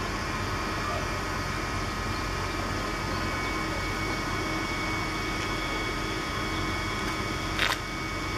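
DB Class 425 electric multiple unit standing at the platform, its on-board equipment humming steadily with several high, steady whining tones. A short, sharp noise sounds near the end.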